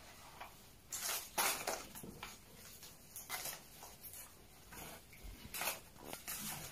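Paper and plastic play-food props being handled on a table: several short rustles and light taps, the loudest about a second and a half in and again near the end.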